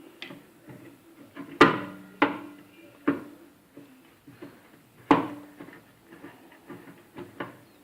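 Sharp metallic knocks and clicks of a tool working against a microwave oven's sheet-metal chassis while a magnetron mounting screw is being removed, with four louder knocks spread over several seconds.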